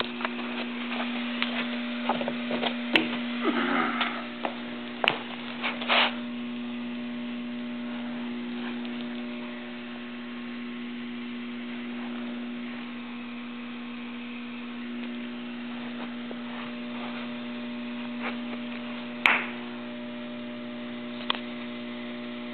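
A steady electrical hum from running shop machinery, with a cluster of sharp knocks and clicks in the first six seconds and one louder knock later on.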